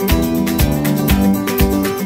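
Background music led by a guitar, over a steady beat of about two a second.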